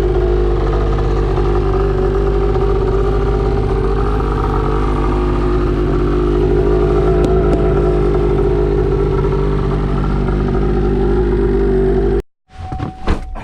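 A vehicle driving, with steady engine and road noise that cuts off suddenly near the end, followed by a few sharp knocks.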